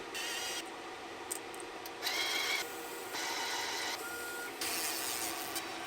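A small machine running in several short, abruptly starting and stopping bursts, one with a brief rising whine.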